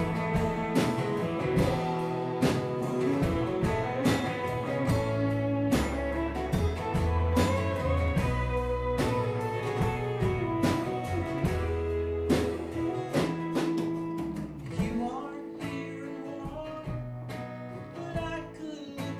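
Live band playing a song on electric guitar, bass guitar and strummed acoustic guitar, with a man singing. The music gets somewhat quieter in the last few seconds.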